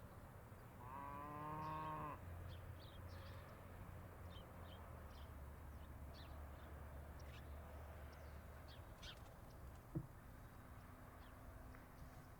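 A cow moos once, a short pitched call of about a second near the start, over faint bird chirps and a low rumble. A single sharp click comes near the end.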